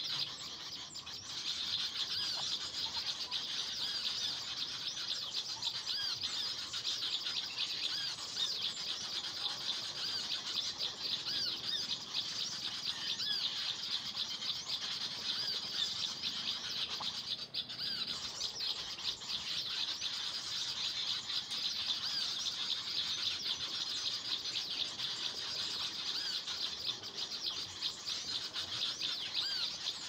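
Small birds chirping in a dense, continuous chorus of quick high chirps.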